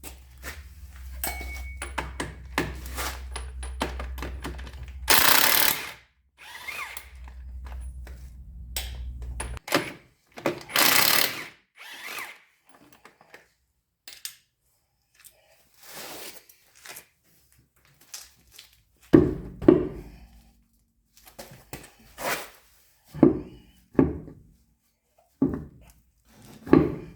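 Hand and power-tool work on a pickup truck's rear brake assembly: a low steady hum for about ten seconds, broken by two short loud bursts of a power tool, then a string of separate metallic knocks and clunks.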